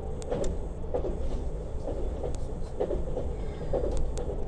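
A Lastochka (Siemens Desiro RUS) electric train running, its wheels clacking over the rail joints about once a second over a steady low rumble, heard from aboard the train.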